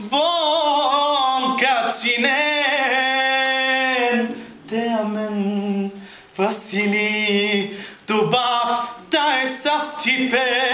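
A single voice singing a slow song, holding long notes with wide vibrato and pausing briefly between phrases.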